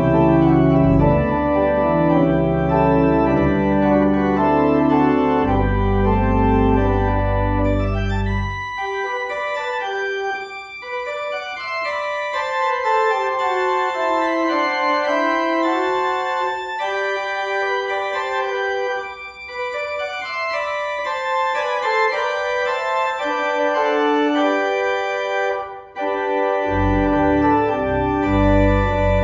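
Church organ playing a postlude: full sustained chords with deep pedal notes, then quieter manual passages of falling and rising runs without pedal from about a third of the way in, with the pedal bass coming back near the end.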